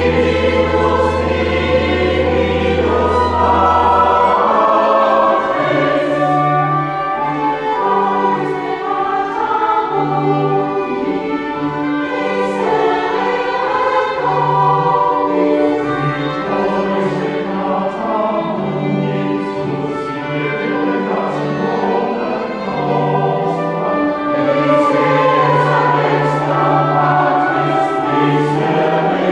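Church choir singing with organ accompaniment. A deep, held organ bass note stops about four seconds in, and shorter low bass notes follow under the voices.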